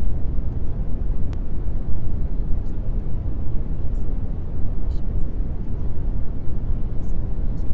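Steady low rumbling noise, even and unbroken, with no distinct events.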